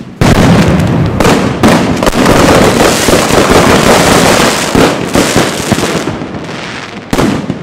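A ground firework spraying crackling sparks: a dense, continuous rattle of many small bangs for about six seconds that then thins out, with one more sharp bang near the end.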